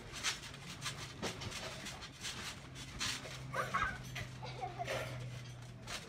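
Giant balloon rubbing and bumping against the children and the trampoline net: a run of short rustling swishes about twice a second, with a brief high squeal about three and a half seconds in.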